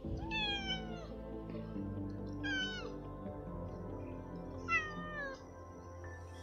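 A cat meows three times, each meow falling in pitch, over steady background music.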